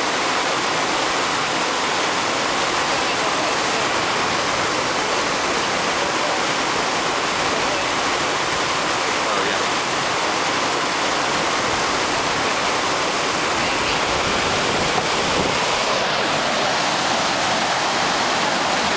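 Whitewater rushing through an artificial slalom canal: a steady, unbroken wash of churning rapids.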